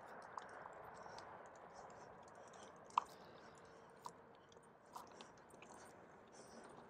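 Faint rolling of a pet stroller's wheels on an asphalt road, with a few sharp clicks and rattles about 3, 4 and 5 seconds in.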